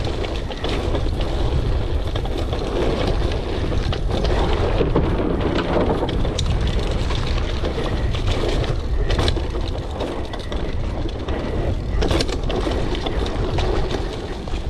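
Mountain bike descending a rough downhill trail: wind buffets the camera microphone in a steady low rumble, over which the bike rattles and clatters with sharp knocks from the bumps. The noise eases off near the end.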